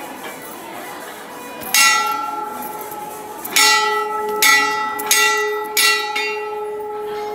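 Temple bell struck five times: once about two seconds in, then four quicker strokes from about halfway. Each strike leaves a ringing tone of several pitches that hangs on between strokes.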